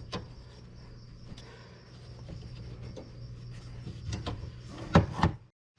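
A ratchet wrench clicking a few times near the end while tightening an AC hose fitting, over a steady low hum. The sound cuts off suddenly just before the end.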